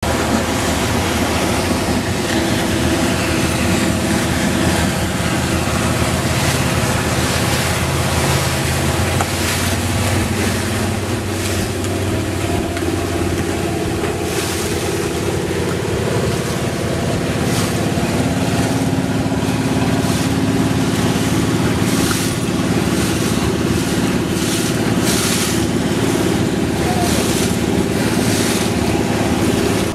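Motorboat engine running steadily at speed, with rushing water and gusts of wind on the microphone; the engine's pitch shifts a little about a third and about halfway through.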